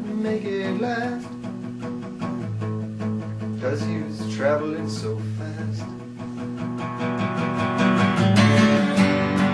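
Acoustic guitar strummed and picked, with a man singing a comic song over it; the strumming grows louder and fuller near the end.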